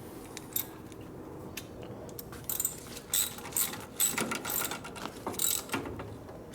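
Socket ratchet clicking in short back-and-forth strokes, tightening the axle pinch bolt on a motorcycle.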